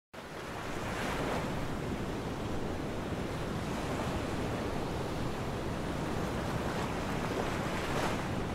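Ocean surf washing on a shore as a steady wash of noise. It fades in at the start, with a swell of breaking waves about a second in and another near the end.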